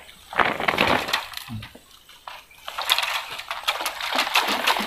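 Crackling, crunching rustle of dry grass and twigs being disturbed, in a short bout near the start and a longer stretch from about three seconds in.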